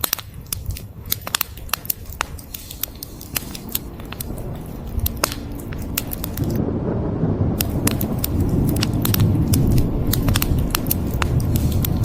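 Wood fire crackling, with many sharp pops throughout. From about halfway a low rolling rumble of thunder builds and swells, staying strong to the end.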